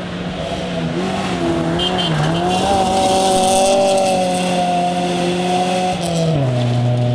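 Rally car engine at high revs as the car comes through a bend on a gravel stage, its pitch wavering and dipping about two seconds in, holding high, then dropping sharply about six seconds in as it shifts up. Gravel noise from the tyres runs underneath.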